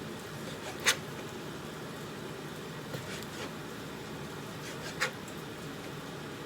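Knife knocking on a cutting board while chicken breast is cut into cubes: two sharp knocks, about a second in and again near five seconds, over a steady hiss.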